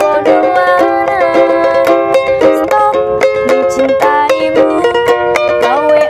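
A woman singing a Javanese pop song to a ukulele strummed in a steady, quick rhythm.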